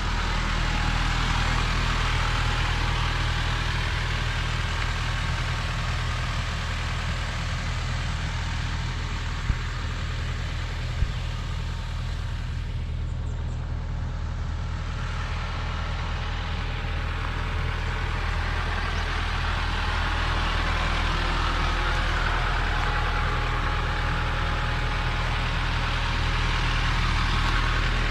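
Car engine running steadily: a low hum under a broad rushing noise, with two short clicks about ten and eleven seconds in.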